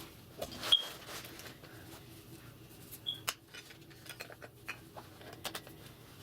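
Handling noises from a DSLR with a long zoom lens being fitted into a padded camera sling bag: scattered taps, knocks and rustles, with two short high squeaks, one about a second in and one about three seconds in.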